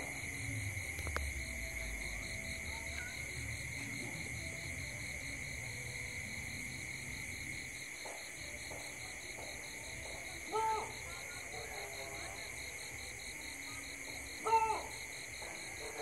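Night insect chorus: steady, high-pitched pulsing trills. Two short, loud animal calls stand out, one about ten seconds in and one near the end.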